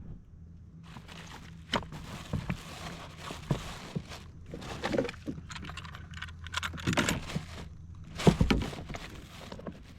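Handling noise aboard a kayak: irregular knocks, clicks and rattles of gear against the hull, with rustling in between and a few louder knocks about five, seven and eight seconds in.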